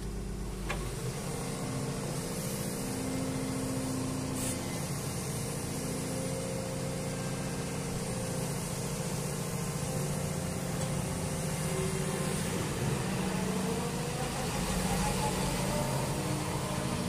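Hyundai HX220 tracked excavator's diesel engine running steadily while its hydraulics move the boom and arm and swing the upper structure. In the last few seconds a whine rises and falls in pitch as the hydraulics work.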